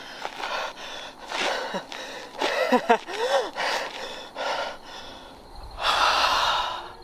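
A man's heavy, ragged gasping breaths, some carrying a short catch of voice, with one long, louder breath near the end.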